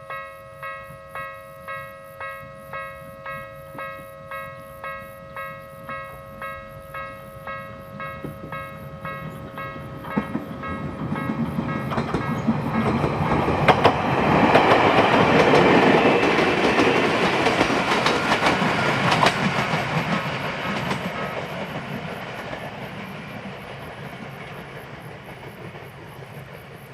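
Japanese level-crossing alarm ringing its electronic bell about twice a second, then a Bessho Line electric train approaching and passing over the crossing, loudest about halfway through, with a few sharp clacks of wheels over rail joints, and fading away as the bell is drowned out.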